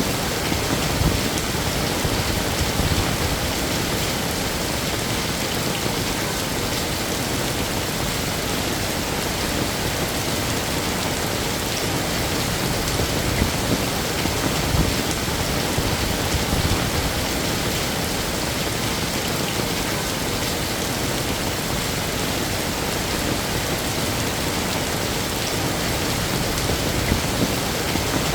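Heavy rain falling steadily, a dense even hiss of drops with small pattering spikes.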